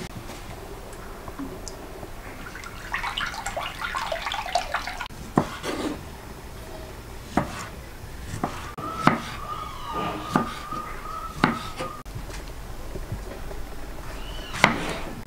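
Knife cutting tomatoes on a wooden cutting board, the blade knocking on the board every second or two. A thin steady tone is heard for about three seconds midway.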